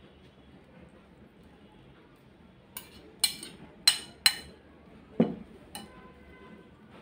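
A metal serving spoon clinking and scraping against ceramic plates as food is served. After a quiet start come about six sharp clinks, one a duller knock, and the last leaves a brief ring.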